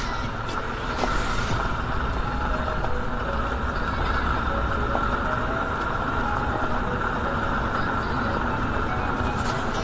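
Yamaha FZ25 motorcycle being ridden, its single-cylinder engine running steadily with road noise.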